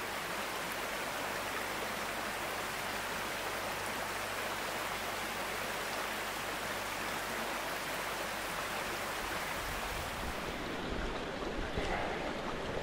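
Small mountain brook running: a steady, even rush of flowing water.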